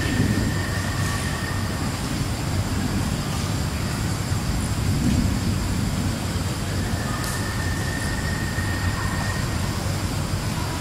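Steady low outdoor rumble. A faint thin high tone is held for a couple of seconds near the start, and again from about seven seconds in.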